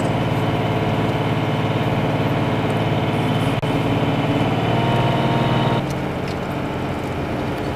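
Pickup's Cummins diesel engine running steadily, heard from inside the cab. About six seconds in, the engine note drops and gets a little quieter.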